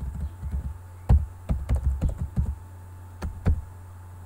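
Keystrokes on a computer keyboard, typed in quick irregular runs, over a steady low hum.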